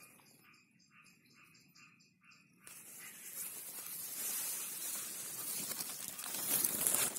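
A faint insect chirping about four times a second. After about two and a half seconds it is covered by a louder, steady rustling of dry leaf litter and phone-handling noise as the person moves through the undergrowth.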